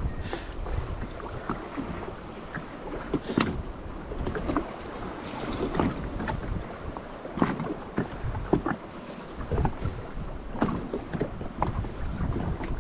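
Wind buffeting the microphone, with water slapping against the hull of a jet ski and scattered small knocks.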